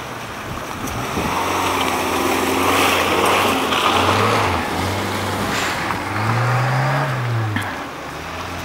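Off-road 4x4 engine revving as the vehicle climbs a muddy slope, the pitch rising and falling twice, the second rev about two-thirds of the way through the longest.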